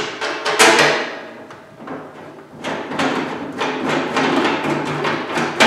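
Clanking and rattling of a metal heater housing and its ceiling mounting bracket as it is handled and bolted up by hand: a string of sharp knocks and clatters, busiest in the second half.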